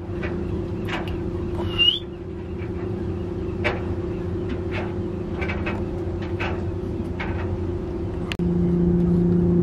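A boat engine running steadily with an even low hum, which gets louder about eight seconds in, with scattered clicks and knocks over it.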